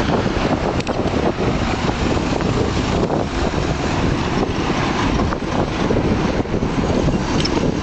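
Steady wind rumble on the microphone of a camera riding on a moving bicycle, mixed with street traffic noise.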